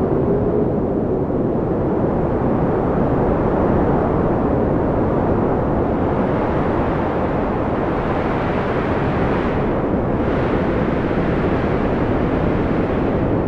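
Steady deep rumble of thunderstorm ambience, continuous with no distinct thunder claps.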